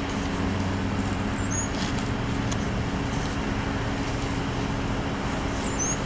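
Steady low hum of an idling car engine. A bird chirps briefly and high about a second and a half in, and again near the end.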